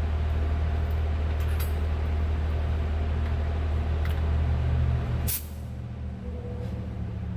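M35 truck's Cummins diesel engine idling, a steady low drone. About five seconds in there is a sharp click, after which the drone drops to a lower level.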